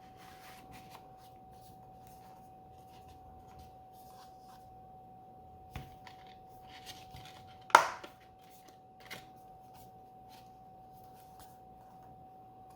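Hands handling Blu-ray discs and their plastic cases: faint clicks and rustles, with one sharp snap close to eight seconds in, over a faint steady high hum.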